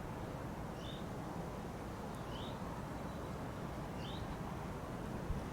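A small bird calling faintly in short high chirps, one about every second and a half, over a steady outdoor hiss.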